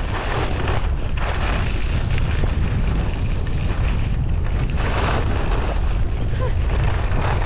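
Wind buffeting the microphone as a skier runs downhill, a heavy steady rumble, with a few louder swishes of skis scraping across groomed snow on the turns.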